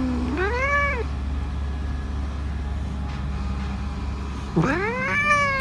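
Scottish Fold cat meowing in annoyance: a short meow about half a second in, then a long drawn-out meow near the end that rises and slowly falls. The cat is cross at being teased and handled.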